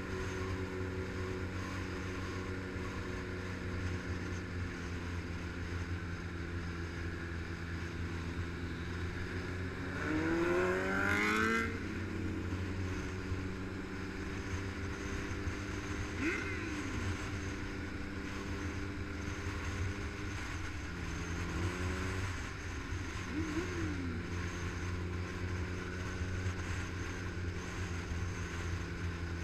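Motorcycle engine running steadily at cruising speed with wind rushing over the microphone. About ten seconds in, an engine revs up in a rising climb, which is the loudest moment. A few shorter rises and drops in engine pitch follow later.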